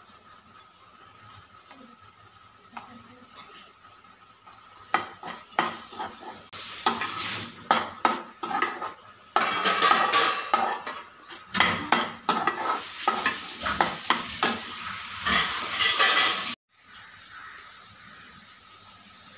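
Metal spoon stirring and scraping mushroom pepper fry around a non-stick kadai, the masala sizzling. The stirring is light at first, turns into busy, loud scraping about five seconds in, and cuts off suddenly near the end, leaving a faint steady sizzle.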